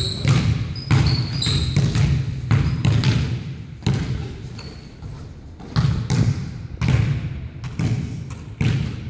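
Basketball bouncing on a hardwood gym floor in irregular dribbles, each bounce ringing on in the hall. A few short, high sneaker squeaks come in the first two seconds.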